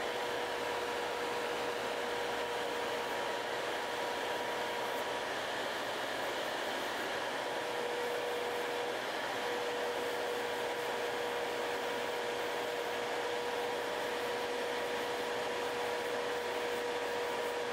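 Electric nail drill with a sanding bit buffing a fingernail, its motor whining at one steady pitch over the steady rush of a nail dust collector's fan. The whine fades a couple of times midway.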